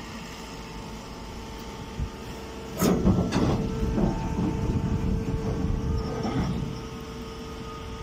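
Hydraulic straw baler running with a steady hum. Just under three seconds in comes a sharp metal clank, then about three seconds of loud knocking and rattling from the machine before it settles back to the hum.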